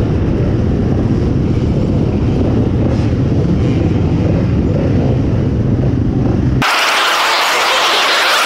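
Many enduro dirt-bike engines running together in a start queue, a dense, rough low rumble. About six and a half seconds in, the sound cuts off suddenly and is replaced by a harsh hiss with no low end.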